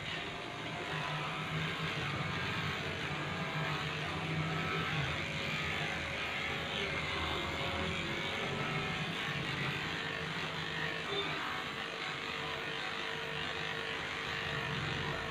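Cordless electric pet clipper running with a steady buzz as it shaves through a shih-tzu's coat.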